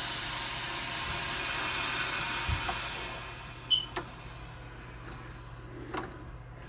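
Water hissing through a partly opened shut-off valve as the repaired supply line refills, fading out about three and a half seconds in. Two sharp clicks follow.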